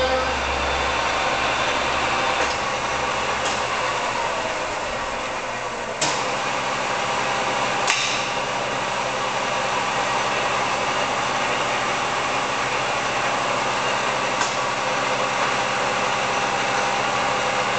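Cincinnati-Bickford radial arm drill press running steadily, its spindle motor and gearing turning with a spindle the seller says sounds good. Two sharp clicks come about six and eight seconds in.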